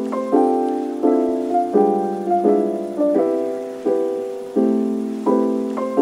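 Background music: piano-like keyboard chords struck about every three-quarters of a second, each one fading before the next.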